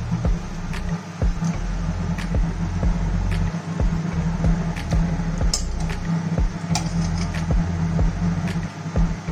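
Background music with a steady beat: a soft click about every three-quarters of a second over a low, changing bass line.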